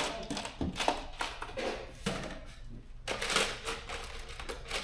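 Metal bolts and nuts clinking and rattling as they are handled by hand and dropped into a bolt kit's compartments: irregular small clicks, with a louder clatter about three seconds in.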